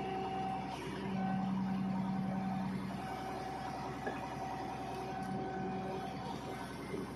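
Hydraulic pile breaker clamped on a concrete pile, with its hydraulic power source's engine running steadily. A whine comes and goes in spells of one to two seconds.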